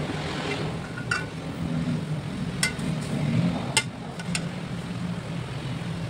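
A metal spoon clinking against an aluminium pot four times as pork hocks are turned in it, over a steady low hum.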